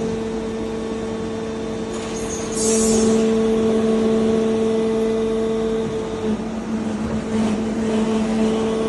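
Doosan Lynx 220 LMA CNC lathe running with a steady machine hum. About two and a half seconds in there is a brief high hiss, and the sound gets a little louder; the hum wavers slightly near the end.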